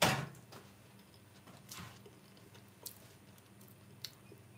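Someone tasting a mouthful of herb mashed potato: a sharp mouth noise at the very start, then faint chewing and a few small clicks.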